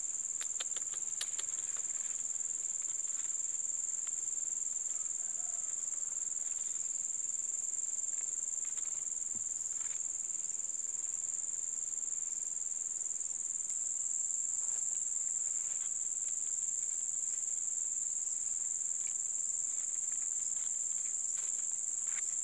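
Steady, high-pitched insect chorus, an unbroken shrill drone.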